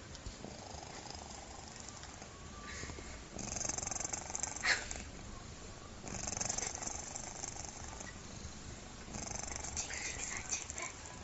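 A cat snoring in its sleep, human-like: a rasping snore with each breath, coming in stretches of about two seconds roughly every three seconds. A brief, sharper crackle sounds about halfway through.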